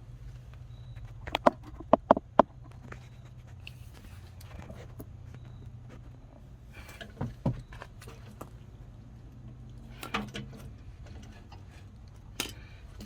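Handling noise of light clicks and knocks, with a quick run of four sharp ones about a second and a half in and a few single ones later, over a low steady hum.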